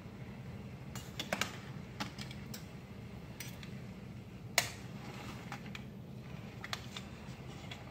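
Metal tongs clicking and clinking against a stainless steel pot while ribs are turned in their cooking liquid: a string of sharp, irregular clicks, the loudest about four and a half seconds in, over a steady low hum.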